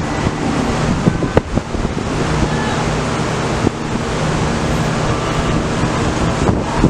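Wind buffeting the microphone over an outdoor city din, with a sharp knock about a second and a half in.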